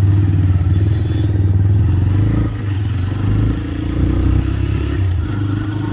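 TVS Raider 125 motorcycle's single-cylinder engine running as the bike is ridden off, a steady low engine note that dips briefly twice.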